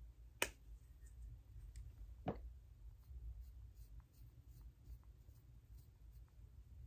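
Quiet drawing or writing sounds: faint light taps and scratches of a pen on a surface, with two sharper clicks, one about half a second in and one about two seconds in.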